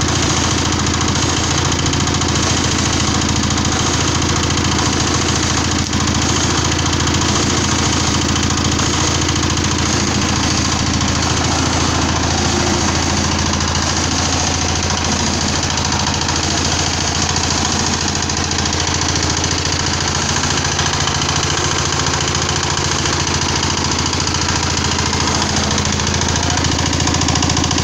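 Mini screw press for palm fruit running steadily under load while it expels pressed fibre, a loud even machine sound with a fast rattle.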